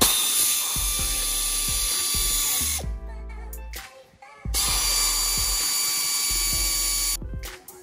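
United Tools pneumatic air ratchet running in two bursts of about three seconds each, a hiss of air with a steady whine, as it tightens cylinder bolts.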